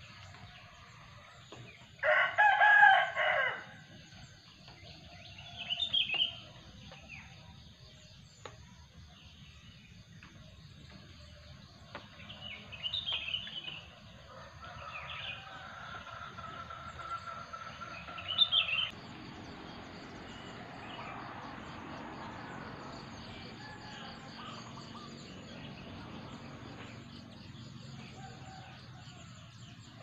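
A rooster crows once, loudly, about two seconds in, over scattered short bird chirps and a steady high insect drone. A low steady hum comes in during the second half.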